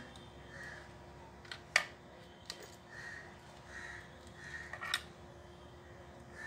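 Small clicks from hands handling plastic wire plugs and leads against a toy RC car's hard plastic chassis, with one sharp click a little under two seconds in and a few softer ones later.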